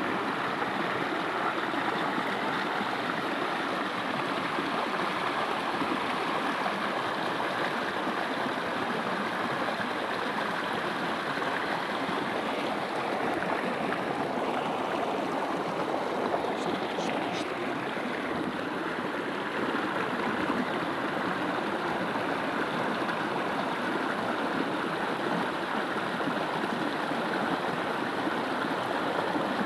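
Shallow rocky stream rushing steadily over and between stones.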